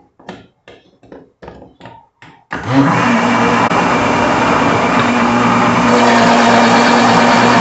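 A string of short, evenly spaced taps, then about two and a half seconds in a countertop blender switches on. It spins up quickly and runs steadily, mixing a corn cake batter with the flour just added.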